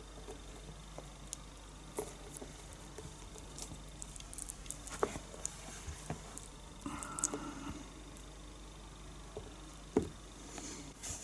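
Faint scattered clicks and light taps of hands handling a wood-glue bottle and dowel at a drilled-out hinge screw hole, with a short squish about seven seconds in as glue is squeezed.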